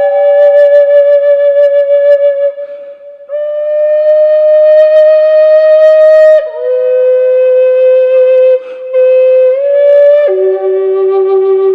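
A Native American style flute in G4 (figured maple, two-piece routed body) plays a slow melody of long held notes with a slight waver, with a gap for breath about three seconds in and a brief one near nine seconds. It ends on a long low note, the flute's root G, with reverb and delay added.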